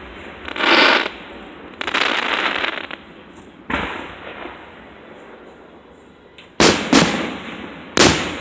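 Fireworks display: aerial shells bursting with sharp booms that ring off, four in all, the last three close together near the end. Before the first boom, two rushing swells of noise, the second about a second long.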